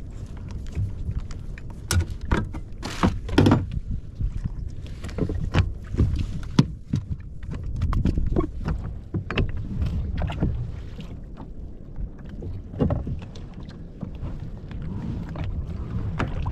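Kayak on the water with a steady low rumble of wind and water on the microphone, and a series of irregular sharp knocks and bumps against the hull as gear and catch are handled.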